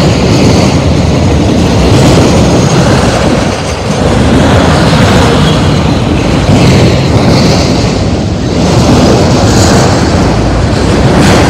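Freight train of autorack cars rolling past close by: the loud, steady noise of steel wheels running on the rails.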